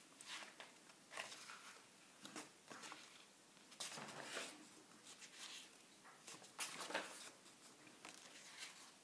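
Paper pages of a large book being handled and turned, with faint rustles and flicks several times; the loudest come about four seconds in and again about seven seconds in.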